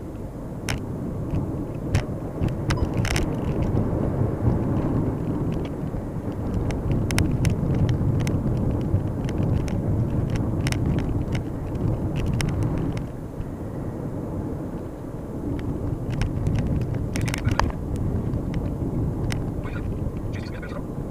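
Cabin noise of a moving 2011 VW Touran 1.2 TSI: steady low road and engine noise, with scattered short knocks and rattles.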